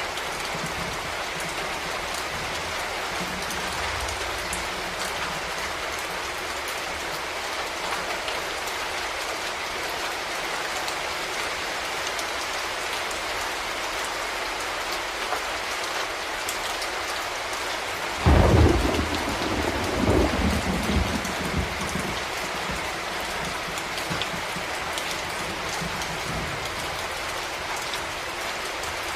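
Steady rain falling, with a sudden loud thunderclap about two thirds of the way through that rumbles on for a few seconds before fading back into the rain.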